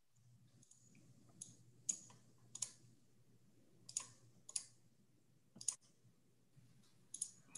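Faint, irregular clicks, about ten over several seconds, over a low steady hum.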